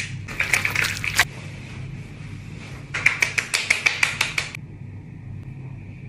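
Hands patting skin-care product onto the face in quick runs of light slaps, the longest starting about three seconds in, over a faint steady hum.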